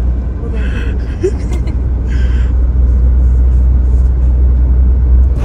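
Steady low road and drivetrain rumble inside the cabin of a moving car.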